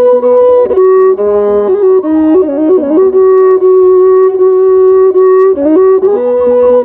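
Instrumental music: a flute-like wind instrument plays a slow melody with long held notes and ornamented turns over a soft low pulse.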